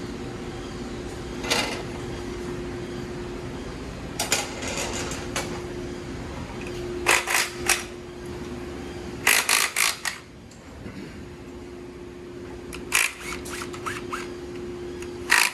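Metal tools and motorcycle parts clinking and clattering in short bursts, about six times, during hand disassembly of a dirt bike, over a steady workshop hum.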